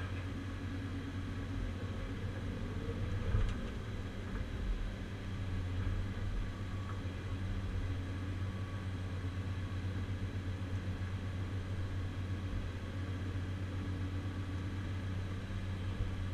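Caterpillar 345C UHD demolition excavator's diesel engine running steadily under hydraulic load, heard from inside the cab as a low, even hum while the boom and shear are worked. A brief knock comes about three and a half seconds in.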